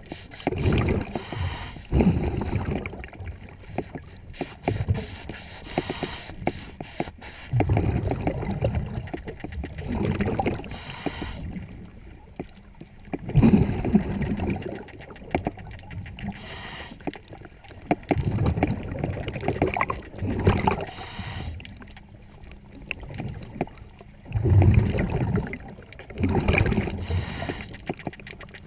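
Diver breathing through a regulator underwater: rumbling bursts of exhaled bubbles alternating with hissing inhalations, a full breath about every five to six seconds. Rapid clicking and scraping over the first several seconds.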